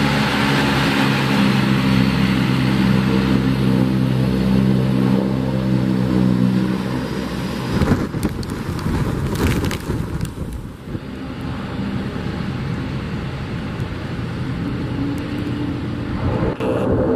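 Bombardier Dash-8 Q400's Pratt & Whitney PW150 turboprops running at taxi power: a steady propeller drone with strong humming tones over a rush of air. About eight seconds in the sound changes abruptly to a rougher rushing noise with a couple of seconds of sharp crackles and bumps, and the propeller tones come back faintly near the end.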